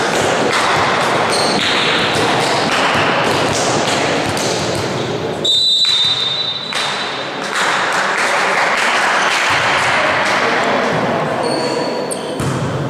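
Indoor volleyball in a reverberant sports hall: ball hits and sneaker squeaks on the court floor under players' shouting. About five and a half seconds in, a short blast of the referee's whistle ends the rally.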